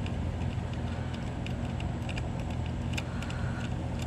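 A steady low hum throughout, with small scattered clicks and rattles of hands working a wire and its parts around a motorcycle frame.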